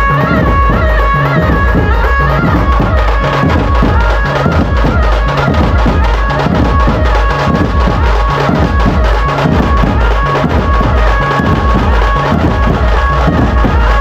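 Loud music with a heavy, steady bass-drum beat, hand-drum percussion and a held melody line.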